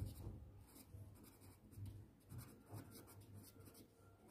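Faint scratching of a pen writing words on paper, in short irregular strokes.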